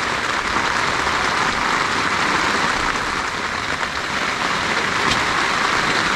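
Steady rain falling on the tent fabric and the wet wooden deck, a dense even patter.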